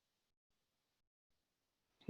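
Near silence: a pause between spoken instructions, with only a very faint noise floor that drops out entirely for moments.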